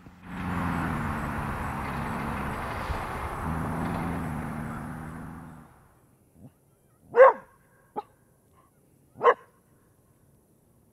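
A dog barking: two loud barks about two seconds apart, with a short yip before each. Before them a steady rushing noise with a low hum runs for several seconds and fades out.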